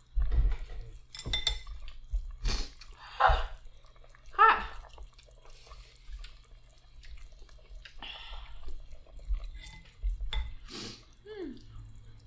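Close-miked eating sounds: chopsticks clicking against ceramic bowls, and wet slurping and chewing of hot pot broth and food, over a low steady hum.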